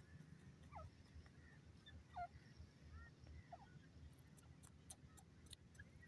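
Faint, short calls of a grey francolin sliding down in pitch, four or five scattered notes with the clearest a little over two seconds in, over a low steady rumble and a few small ticks near the end.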